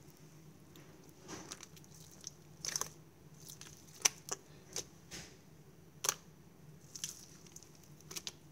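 Iceberg slime being stretched, folded and squished by hand, giving irregular sharp pops, clicks and brief crackles, the loudest pop about four seconds in.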